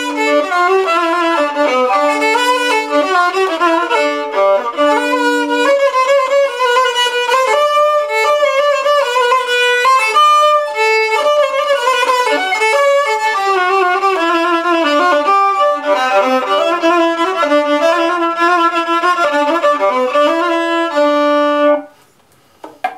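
Violin playing a fast melody with quick runs of notes, stopping abruptly near the end.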